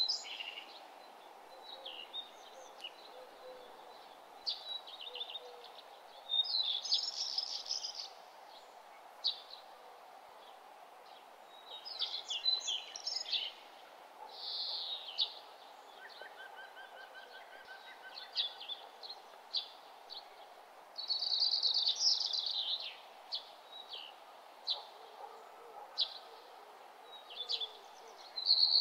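Small birds chirping in short, irregular bursts over a steady background hum.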